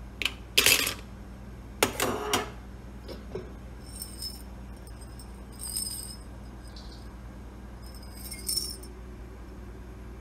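Glass and metal knocking and clinking as a glass vessel and its metal knob are handled in a wire dish rack: a few sharp clatters in the first couple of seconds, then lighter, ringing clinks of glass every two seconds or so.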